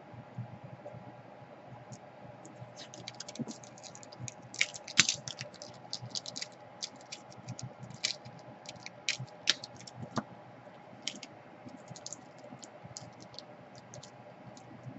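Irregular light plastic clicks and taps from laptop parts being handled during a repair, with a dense flurry about five seconds in.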